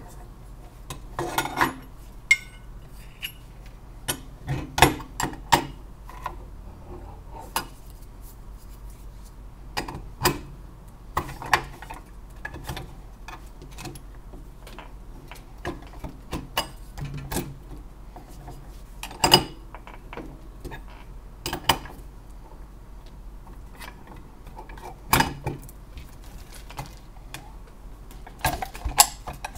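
Metal clinks and knocks from an open-end wrench and the probe's metal fitting being handled and set against each other on a tabletop. The knocks are irregular and spread out, with a few sharper ones about two-thirds of the way in and again near the end.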